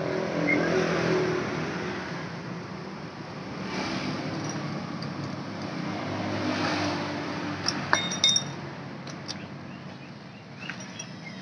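Metal wrench clinking against the motorcycle engine as the spark plug is refitted, with a quick cluster of sharp clinks about eight seconds in, over the hum of passing traffic that swells and fades twice.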